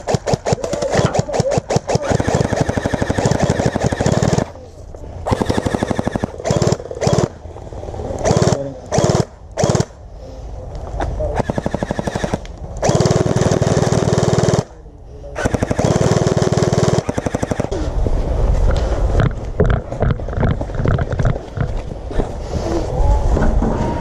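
Electric gel blaster firing on full auto in repeated bursts, a rapid clatter of shots broken by short pauses.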